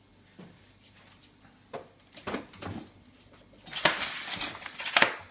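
Objects being handled: a few light knocks and clicks, then about a second and a half of rustling and scraping that ends in a sharp click.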